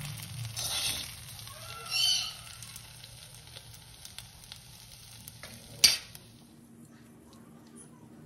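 Eggplant slices sizzling in a hot pan while a steel spatula scrapes them up, with one sharp metallic clink about six seconds in. The sizzling then fades to a quiet background.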